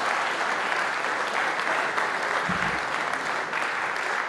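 Audience in a hall applauding steadily.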